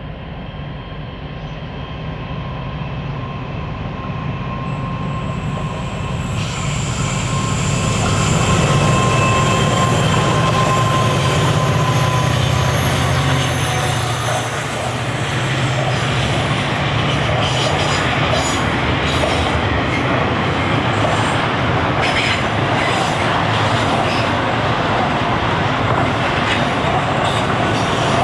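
NR class GE diesel-electric locomotive hauling a container train around a curve: its engine drone grows louder as it approaches and passes about halfway through. The container wagons then roll by with wheel squeal and rail clatter.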